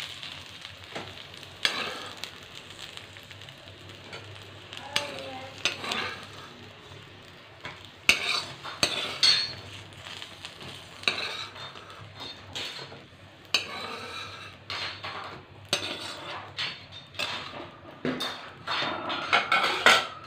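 Metal spoon scraping and knocking against a metal kadhai as fried parwal pieces are scooped out of hot oil, over a light sizzle of the oil. The knocks and scrapes come thicker and louder in the second half.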